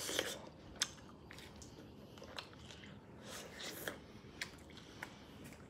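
Close-up wet chewing and lip-smacking of someone eating mustard-dipped strawberries fast, with scattered short mouth clicks.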